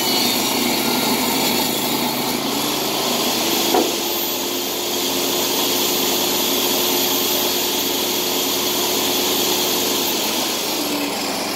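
Electric table saw finishing a rip cut through a wooden board, then its blade spinning free with no load, with one sharp knock about four seconds in. The inverter generator powering the saw runs steadily underneath.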